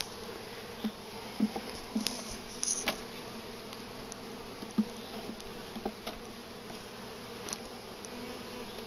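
Honey bees buzzing steadily around an open hive box, with a few light wooden knocks as frames are set into the box.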